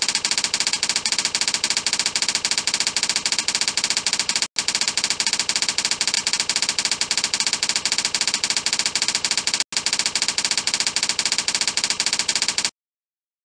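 Presentation-software typewriter sound effect: a rapid, even clatter of typewriter key clicks accompanying text being typed onto a slide. It breaks off briefly twice, about five seconds apart, and cuts off suddenly near the end.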